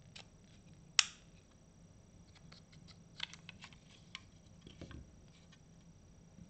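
Handling clicks as a Sig P320's fire control unit is worked out of its grip module: one sharp metallic click about a second in, then a string of lighter clicks and rattles, and a dull knock near the end.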